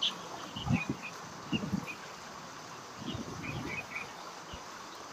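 Small birds chirping in short, high notes scattered through. A few low, dull thumps come louder over them, about a second in and again around three to four seconds in.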